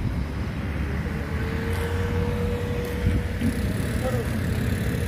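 Outdoor crowd ambience: a steady low rumble with faint voices in the background, and a thin steady tone for about two seconds in the middle.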